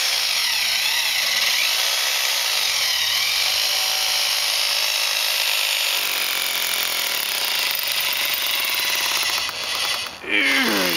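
Corded electric hammer drill drilling into a concrete floor, running steadily. It cuts out briefly about ten seconds in and starts again.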